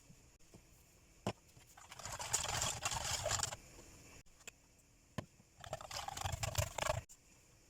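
Kitchen utensil scraping and rattling in quick strokes against a bowl or dish during food preparation, in two bursts of about a second and a half each, each preceded by a sharp click.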